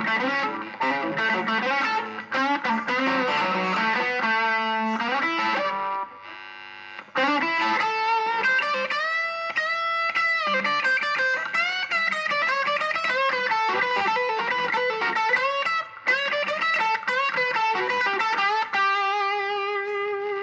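Home-built Les Paul-style electric guitar with a sapele mahogany body, played with effects and some distortion: a lead line of quick single notes with string bends and vibrato. There is a short break about six seconds in, and the line ends on a held note with vibrato.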